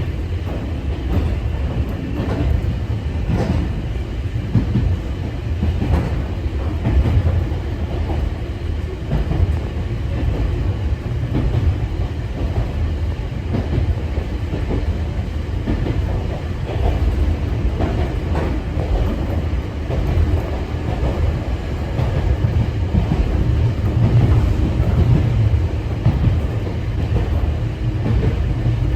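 Sangi Railway 801 series electric train (ex-Seibu 701 series) heard from inside the car while running: a steady low rumble with the wheels clicking over rail joints at uneven intervals.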